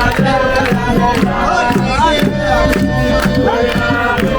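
Music with a steady, regular beat and a melody that may carry singing.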